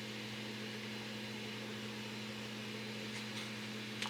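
Steady low hum over an even background hiss, with a few faint small clicks near the end.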